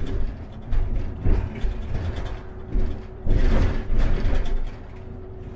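Diesel city bus running, heard from inside: a steady low engine rumble with a faint steady whine, rising in louder surges now and then.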